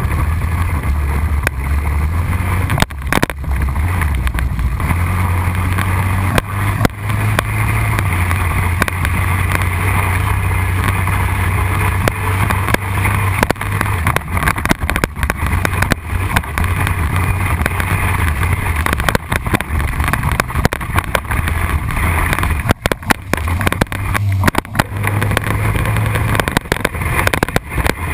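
Honda Rincon 680 ATV's single-cylinder engine running hard, its pitch stepping up and down with the throttle, with wind rush on the microphone. Scattered sharp knocks from gravel and bumps on the trail.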